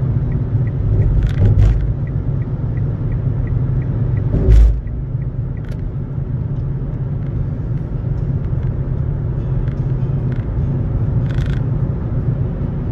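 Car driving, heard from inside the cabin: a steady low rumble of road and engine noise, with one sharp thump about four and a half seconds in and a few fainter knocks.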